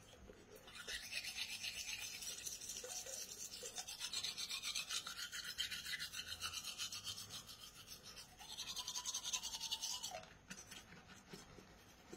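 Manual toothbrush scrubbing teeth in quick back-and-forth strokes. It starts about a second in, eases briefly near eight seconds, and stops about ten seconds in.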